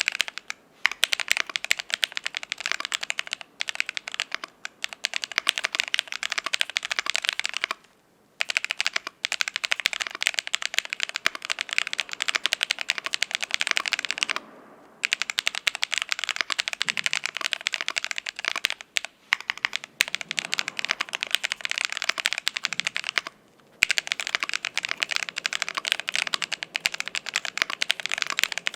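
Fast continuous typing on a Cyberboard R3 mechanical keyboard with an aluminium plate, lubed ICY Silver switches and transparent keycaps, a dense run of key clacks broken by three short pauses.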